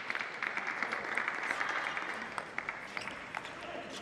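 Table tennis rally: sharp, irregular clicks of the celluloid ball striking bats and table, over a steady hiss of hall noise that eases off midway.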